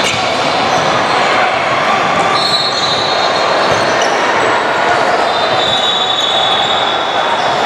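Indoor basketball game sound: a ball bouncing on the court amid steady, echoing gym noise with some voices in the background.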